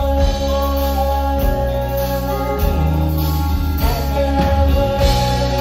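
Live soft-rock band playing, with electric guitar, keyboards and a heavy bass, long held notes and some singing.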